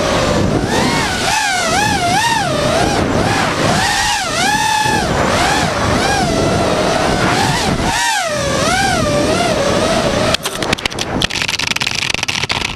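FPV quadcopter's motors and propellers whining, the pitch swooping up and down as the throttle changes. About ten seconds in, the whine breaks into a rapid crackling clatter as the drone hits the floor, then stops abruptly.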